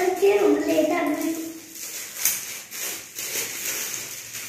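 A child's voice with drawn-out, held sounds for about the first second and a half. After that, quieter noise with a few faint clicks.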